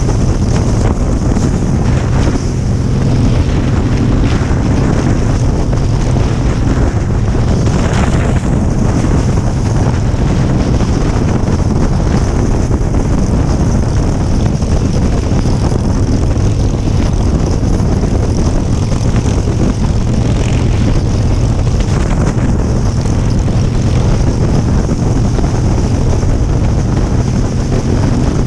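Motorcycle engine running steadily at cruising speed, mixed with heavy wind noise on the microphone, with no shifts or changes in pace.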